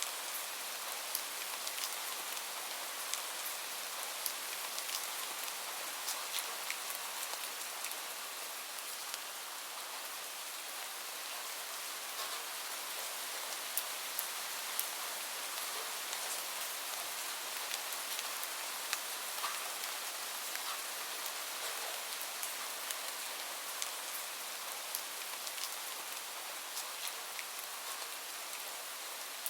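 Steady rainfall: an even hiss of rain with many small separate drop ticks scattered through it.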